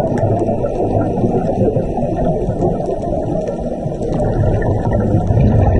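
Muffled underwater noise picked up through a camera's waterproof housing: a dense, steady rumble with the bubbling of scuba divers' regulators, swelling a little near the end.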